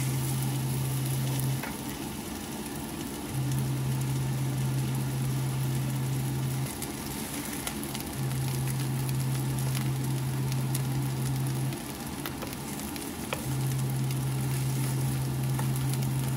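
Food frying and sizzling in a pan, with small crackles. A low hum is the loudest sound; it cuts in and out, running for a few seconds and stopping for about a second and a half each time.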